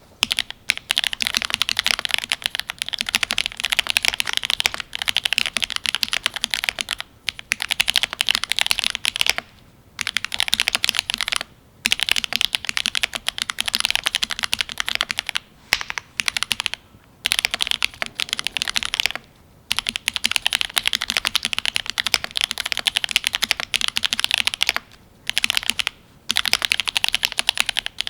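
Fast typing on a Cyberboard R3 mechanical keyboard with lubed Gateron Ink Black linear switches, an aluminium plate and GMK keycaps: a dense run of keystroke clacks broken by a few short pauses.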